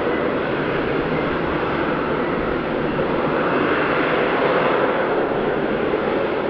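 F-35B Lightning II jet running in STOVL mode, its F135 engine and lift fan both working as it flies slowly with the lift-fan doors open. A loud, steady jet noise that swells slightly about four to five seconds in.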